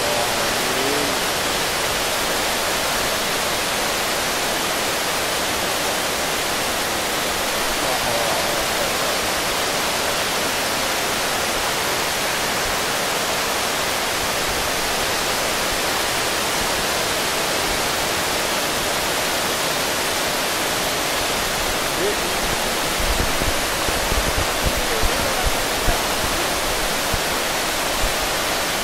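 Muddy flash-flood water rushing in heavy rain, a steady, unbroken hiss. In the last few seconds, low irregular thumps of wind buffeting the microphone.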